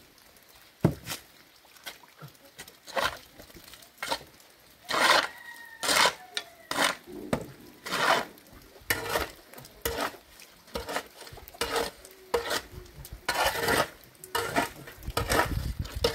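Steel shovel scraping and scooping wet mud off hard ground, in irregular strokes about one every second.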